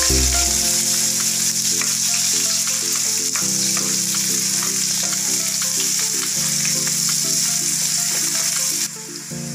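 Sliced onions sizzling in hot oil in a non-stick kadai, with a wooden spatula stirring them and tapping against the pan; the sizzle cuts off suddenly near the end.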